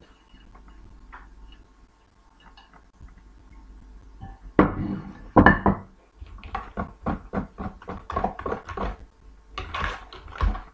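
Kitchenware being handled at a plastic mixing bowl with a whisk in it: faint clinks at first, then two loud knocks about halfway through, followed by a quick series of knocks and clatters about four a second.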